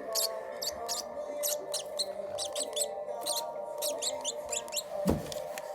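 Lovebird chicks giving high-pitched begging squeaks while being hand-fed, short chirps repeated several times a second.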